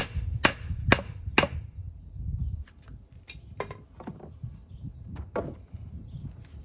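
An axe chopping wood: four sharp strikes about half a second apart in the first second and a half, then a few lighter knocks and taps.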